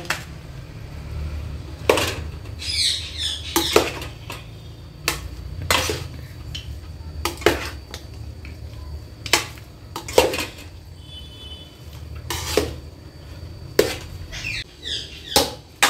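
A spoon knocking and scraping against a metal cooking pot as parboiled rice is turned over and mixed into biryani masala, with sharp knocks every second or two. There are brief squeaky scrapes about three seconds in and near the end, over a steady low hum.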